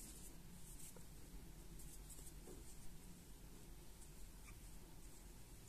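Faint scratchy rustling of yarn drawn over a crochet hook while working a puff stitch.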